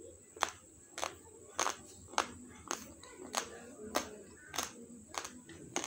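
A person chewing a mouthful of raw, uncooked basmati rice: hard dry grains cracking between the teeth in sharp crunches, about ten of them spaced a little over half a second apart in a steady chewing rhythm.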